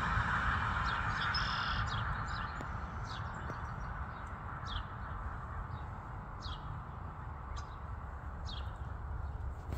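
Canada goose goslings peeping: a run of short, high, falling peeps about one a second, over a steady low rumble.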